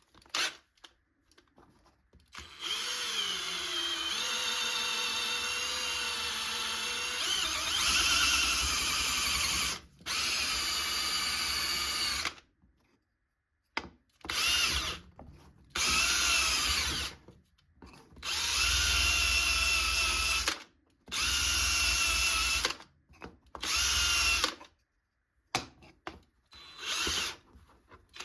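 Handheld electric power tool working wood, run in repeated bursts: one long run of several seconds, then shorter runs of a second or two with pauses between. Its motor whine shifts in pitch as it loads and speeds up.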